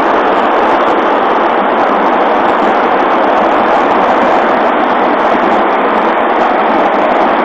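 Steady rolling roar of a large crowd of skateboards' wheels on the asphalt street below, an even noise that neither rises nor falls.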